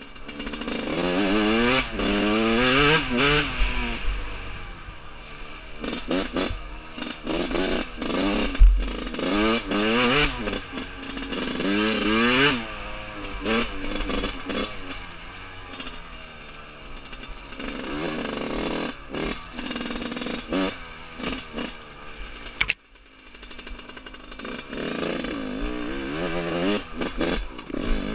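1999 Yamaha YZ125's two-stroke single-cylinder engine revving up and down over and over as the bike is ridden, with knocks and rattles mixed in. The engine is being run in. The revs drop off sharply near the end, then pick up again.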